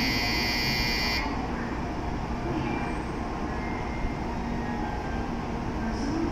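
Electronic station departure bell ringing, then cutting off abruptly about a second in. A low steady hum from the stationary N700A Shinkansen train and the platform remains.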